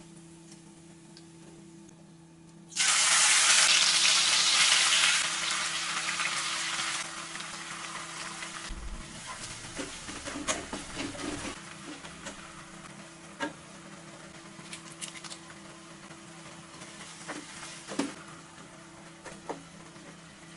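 Chopped shallots and red bird's eye chillies going into hot oil: a sudden loud sizzle about three seconds in that fades over several seconds into steady frying. A spatula stirs and scrapes the pan with occasional taps, over a low steady hum.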